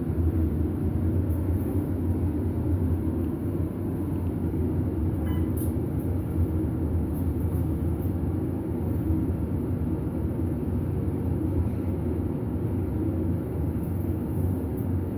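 Hotel elevator car travelling down between floors: a steady low rumble of the ride heard from inside the cab.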